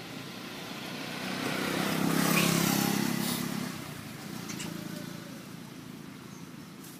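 A motor vehicle driving past, growing louder to a peak about two and a half seconds in and then fading away.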